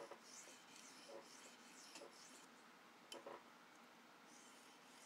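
Leatherman E33L's steel blade stroked back and forth across an oiled sharpening stone: faint, repeated soft scraping swishes, with a few light clicks, the loudest about three seconds in.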